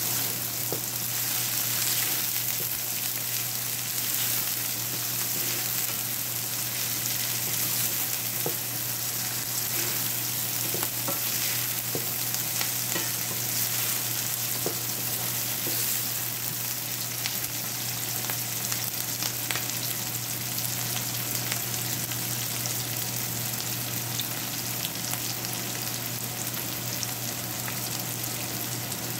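Chopped onions sizzling steadily in hot oil in a nonstick frying pan, with scattered light scrapes and knocks of a wooden spatula stirring them.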